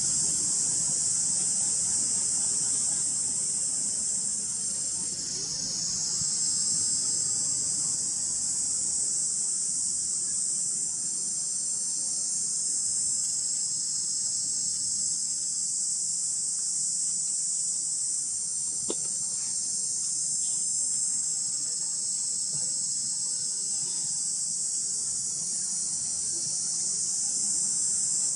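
Steady, shrill chorus of insects, a dense high-pitched buzz that dips briefly about five seconds in.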